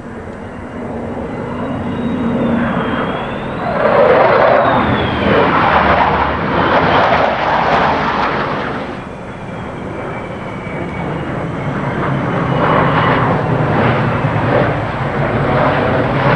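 Military jet fighter flying a demonstration pass, its engine roar building, loudest about four to eight seconds in, easing off and then swelling again near the end.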